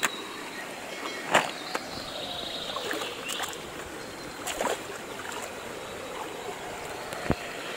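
Shallow stream water running and trickling over rocks, with a few brief knocks.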